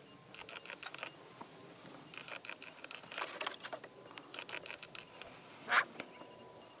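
Black-billed magpie's claws tapping and scratching on a car's metal hood as it hops and shifts about, in quick clusters of light ticks, with one louder, sharper sound a little before the end.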